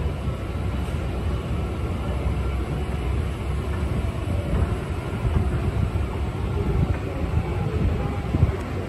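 Steady low rumble of a moving subway-station escalator being ridden, with a few low knocks near the end.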